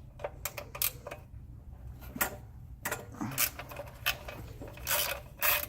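Metal hand tools being handled: irregular clicks and clinks, a few louder near the end.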